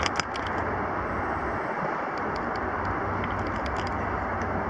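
Steady low rumble and hiss of a distant approaching diesel-hauled coal train mixed with open-air ambience, with a few sharp handling clicks right at the start.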